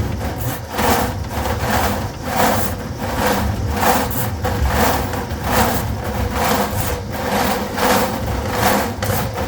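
Electric drain-cleaning machine running with a steady motor hum, its snake cable rattling and scraping in uneven pulses as it works through a kitchen drain line blocked with grease.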